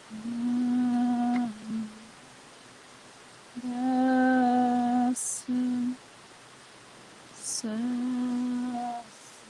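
A woman humming three long notes on the same low, steady pitch, each held for one to two seconds with pauses between.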